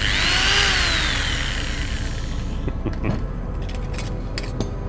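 A sudden hissing whoosh that fades over about two and a half seconds, then metal hand tools clinking as they are picked up and handled on a table.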